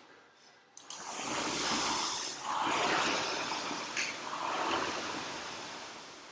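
Air-resistance rowing machine's fan flywheel whooshing as it is pulled, starting about a second in and swelling and fading with each stroke.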